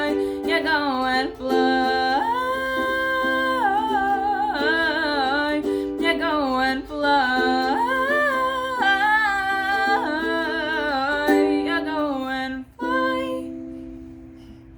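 A wordless hummed vocal melody over a plucked-string accompaniment, ending on a held chord that fades out near the end.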